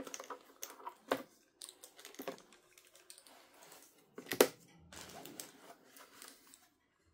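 Router packaging being handled, rustling and crinkling, with sharp knocks about a second in and a louder one about four and a half seconds in.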